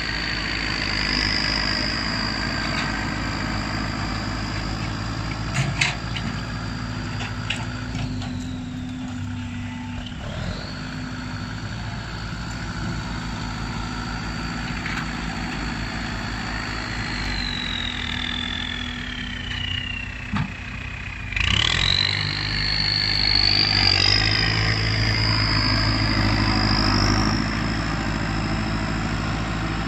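Turbocharged Kubota tractor's diesel engine running, with a high whistle over the engine note. The whistle slowly falls in pitch, then about two-thirds of the way through it jumps back up and climbs while the engine gets louder.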